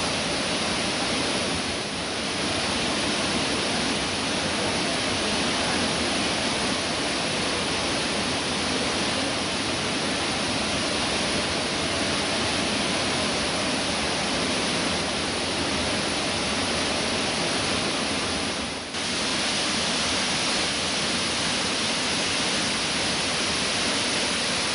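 Kawasan Falls pouring: a steady, dense rush of falling water that briefly drops in level twice, slightly about two seconds in and more sharply near the end.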